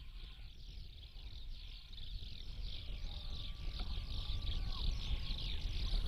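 A large flock of birds calling at once: many short, falling calls overlapping in a continuous chorus, growing louder toward the end, over a low rumble of wind.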